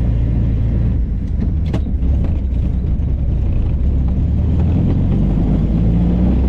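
1935 Austin 7 Ruby's small four-cylinder side-valve engine running steadily with a deep rumble, with a short knock or rattle about two seconds in.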